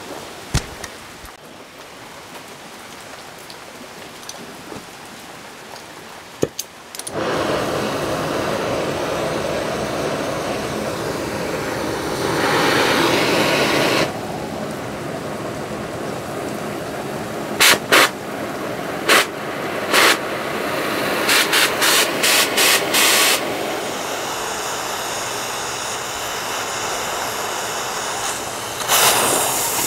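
Oxy-acetylene cutting torch: after a sharp click the flame lights with a steady loud hiss about seven seconds in, and the hiss gets louder for a stretch as cutting goes on. Midway, a run of sharp loud pops from the torch flame at the steel plate, which fits the owner's remark that his settings were a little off at first.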